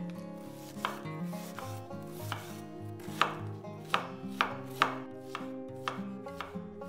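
Kitchen knife shredding cabbage on a wooden cutting board: sharp chops at an uneven pace, roughly one or two a second, loudest around the middle.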